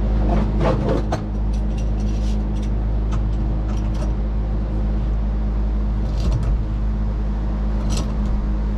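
Steady low mechanical drone of a running motor, unchanging in pitch, with a few faint light clicks over it.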